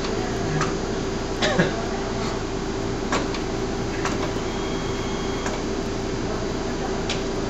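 Steady machine hum and hiss of running equipment, with a few faint clicks scattered through it.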